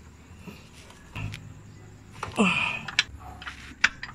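Scattered metallic clicks and clinks of a socket wrench on the oil pan drain plug of a Suzuki Every, with a brief falling sound about halfway through.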